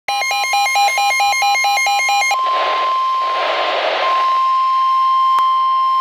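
Midland WR-120B weather radio sounding its electronic alert: two pitches alternating about four times a second. About two seconds in it switches to the steady single-pitch NOAA Weather Radio warning alert tone, with a patch of hiss and one click over it. This tone is the signal that a warning broadcast is about to follow.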